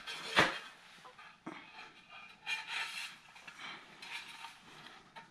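Ceramic floor tile set down on a bed of tile adhesive with a sharp knock about half a second in, then faint rubbing and scraping as hands press and slide it into place.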